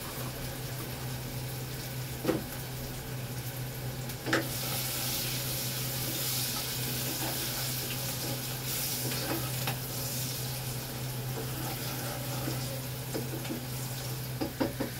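Onions and chillies sizzling in hot oil in a pot, growing louder a few seconds in. A wooden spatula stirs and knocks against the pot a few times, over a steady low hum.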